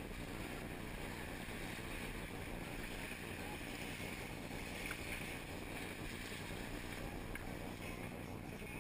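Steady rush of wind and water aboard a sailing catamaran under way, with wind buffeting the microphone.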